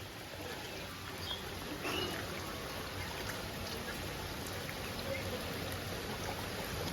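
Steady hiss of running water, with a couple of faint short high chirps about one and two seconds in.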